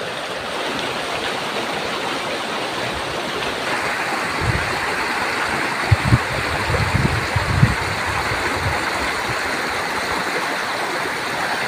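River water flowing: a steady rush of water, with a few low thumps near the middle.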